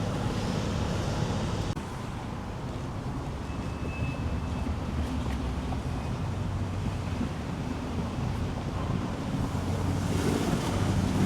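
Wind buffeting the microphone over a low, steady hum, with no clear single event.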